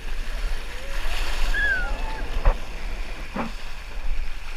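Water-park ambience: a steady rush of water with wind buffeting the microphone, faint voices calling in the distance, and two sharp knocks about halfway through.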